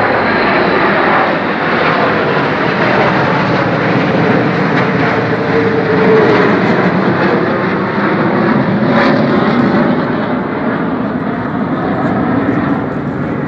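Jet engines of a military formation flying overhead: a B-2 stealth bomber with four fighter jets. A loud, steady rushing noise that swells a little about halfway through.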